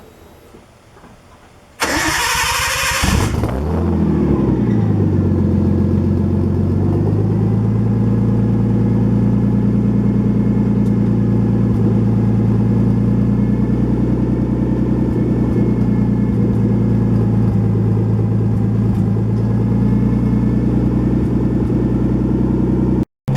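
Nissan RB20DET turbo inline-six started from cold through a gutted muffler with no catalytic converters, so the exhaust is effectively a straight pipe. It catches about two seconds in with a brief flare of revs, then settles into a loud, steady idle.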